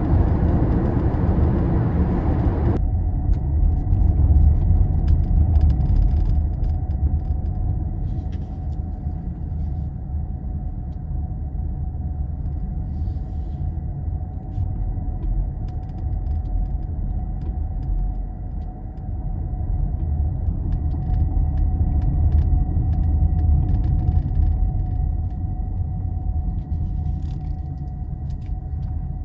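Steady road and tyre rumble heard inside a moving Toyota Prius Prime, with a faint steady whine and scattered faint ticks. A hiss drops away suddenly about three seconds in.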